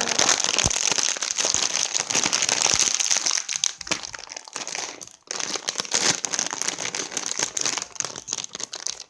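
A crinkly foil chip bag of Lay's crackling as it is handled and pulled at, with a short break about five seconds in.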